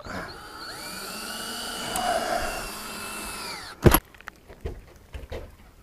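Power drill running for a few seconds, driving the fastener on a solar-panel mounting clamp. Its pitch rises as it spins up and falls as it winds down, and a single sharp click comes just after it stops.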